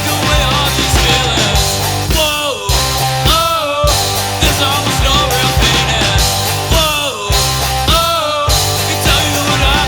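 Rock band's recorded song playing loud and steady, with a driving bass-and-drum beat under melodic phrases that bend in pitch.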